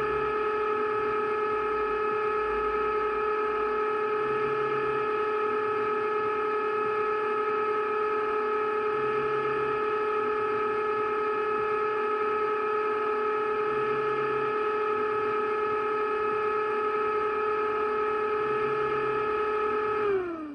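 DCC sound decoder in a model Class 37 diesel playing a Mirrlees-engined Class 37 sound through a small EM2 speaker: a steady high-pitched whine with several overtones, holding one pitch until it starts to fall right at the end.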